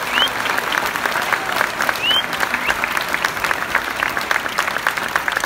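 Audience applauding steadily after the music ends, with a couple of short rising whistles, one at the start and one about two seconds in.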